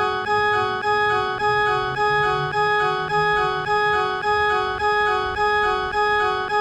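Japanese railroad crossing warning bell: an electronic alarm ringing steadily in an even rhythm of two alternating tones, a little under two dings a second.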